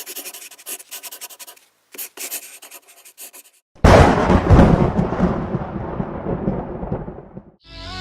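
Intro sound effects: two runs of rapid, scratchy rattling, then a sudden heavy boom about four seconds in that rumbles away over the next few seconds.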